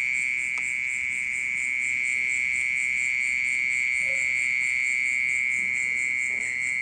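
Continuous, steady high-pitched ringing buzz of an unseen insect singing without a break, loud and even like a small water pump.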